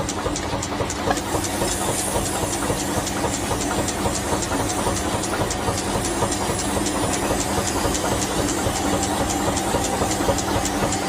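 A machine running steadily, with a constant hum and an even, rapid clicking of about four ticks a second.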